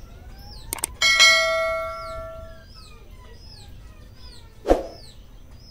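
Subscribe-button animation sound effects: a quick double mouse click, then a bright bell ding about a second in that rings for over a second, and a short thump near the end. Birds chirp repeatedly in the background.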